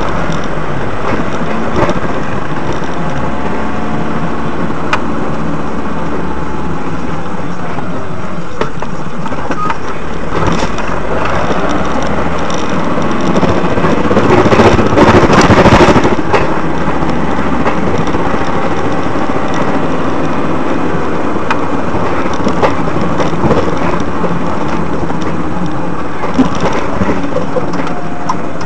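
Continuous vehicle noise, engine and road rumble, with a louder noisy stretch lasting about two seconds midway through.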